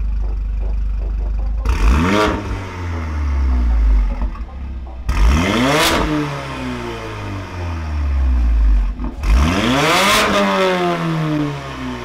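Mercedes-AMG A45's turbocharged 2.0-litre four-cylinder revved hard three times from idle through an Armytrix turbo-back valved exhaust with decatted downpipe, valves open. Each rev climbs quickly, and the revs then fall away slowly back to idle.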